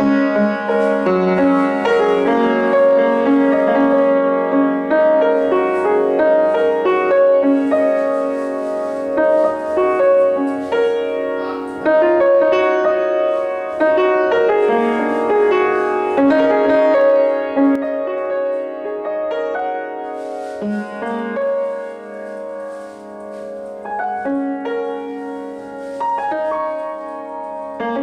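Solo piano music played over the footage, a flowing melody over chords that gets softer for a while after about twenty seconds.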